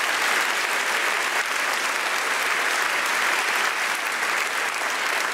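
Studio audience applauding, dense steady clapping at an even level throughout.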